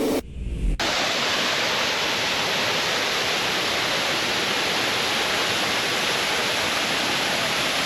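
Waterfall rushing: a steady, loud wash of falling water that comes in sharply about a second in, after a brief low rumble.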